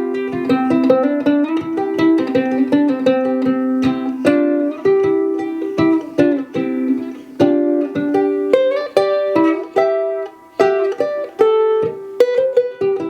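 Soprano ukulele with an Adirondack spruce top and figured Tasmanian blackwood back and sides, in high-G tuning. It is played as an improvised run of plucked melody notes and chords, with heavy reverb that makes each note ring on.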